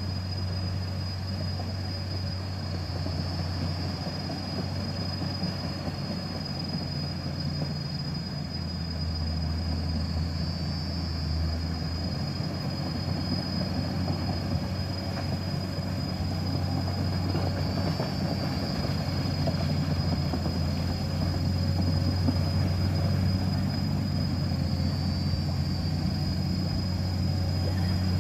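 Komatsu hydraulic excavator's diesel engine running steadily as the machine tracks through a flooded mud pit, growing gradually louder as it comes closer.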